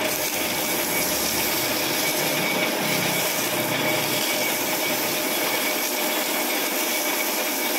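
Engine flywheel spinning on a lathe with sandpaper pressed against its clutch friction face: a steady sanding hiss over the running of the lathe. The face is being smoothed so the clutch lining does not wear quickly.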